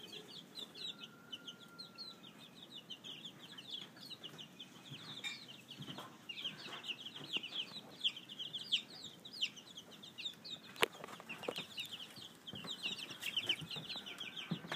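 Chickens calling: many short, high-pitched calls overlapping without pause, with a single sharp knock about eleven seconds in.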